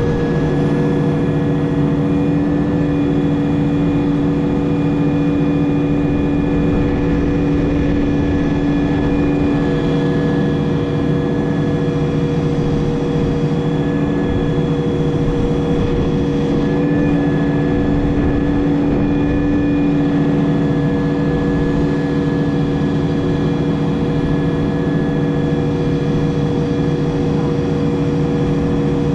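Case 580 Super M backhoe's diesel engine running at a steady speed while the backhoe digs the trench, its pitch never changing.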